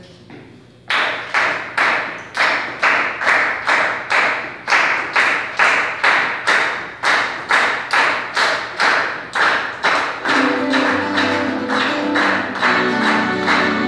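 A small ensemble playing Latin American music: it opens with a steady strummed or struck rhythm, about two strokes a second. Around ten seconds in, held melody notes from the accordion and wind instruments join.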